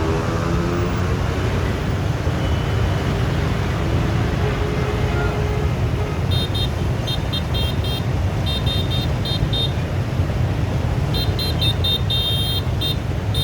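Steady low rumble of road traffic. From about six seconds in, runs of short high-pitched beeps repeat several times a second, in two bursts.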